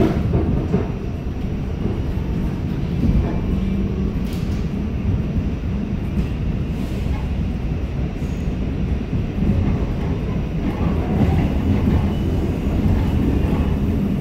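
R46 subway train running along the track: a steady low rumble with a few sharp clicks and rattles.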